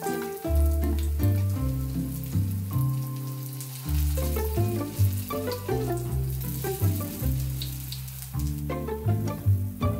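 Vegetable fritter frying in oil in a pan, a steady crackling sizzle, under background music with a plucked bass line that is the louder of the two.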